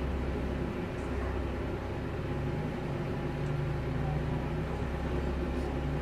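Steady low hum with a faint hiss over it: background room noise, even and unchanging.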